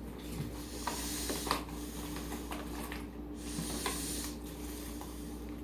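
Clear glue slime being kneaded and pulled by hand as it thickens with activator: faint sticky squelches and small clicks over a steady hiss and low hum.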